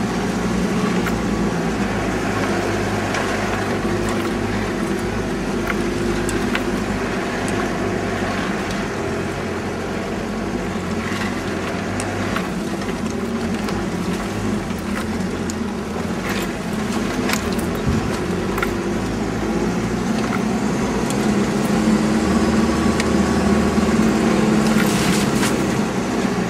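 A 4x4's engine running steadily while driving over a rough dirt track, heard from inside the cabin, with scattered knocks and rattles as it goes over bumps. The engine grows louder for a few seconds near the end.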